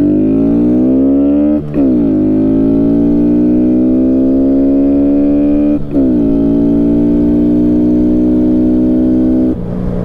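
Honda Grom's single-cylinder engine accelerating through the gears. The revs climb, break at two quick shifts about two and six seconds in, and the throttle is rolled off near the end.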